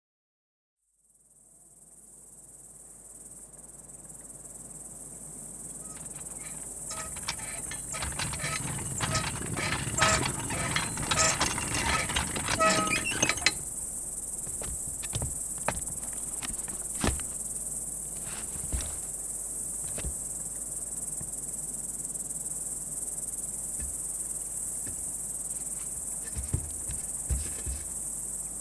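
Crickets chirping in a steady, high-pitched chorus that fades in about a second in. From about six to thirteen seconds a dense run of clicks and light clanks sounds over it, and scattered clicks follow.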